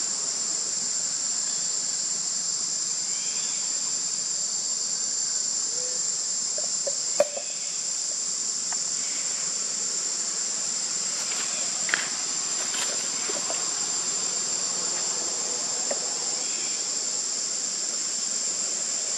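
Steady high-pitched drone of forest insects, with a sharp click about seven seconds in, a smaller click near twelve seconds, and a few faint short chirps.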